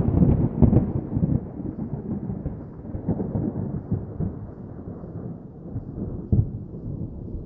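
Thunder: a loud clap crackles through the first second or so, then dies away into a long low rumble. Another sharp crack comes about six seconds in.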